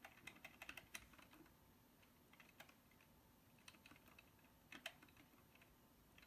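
Faint computer keyboard keystrokes navigating a BIOS setup menu: a quick run of clicks in the first second and a half, then single taps and short pairs every second or so.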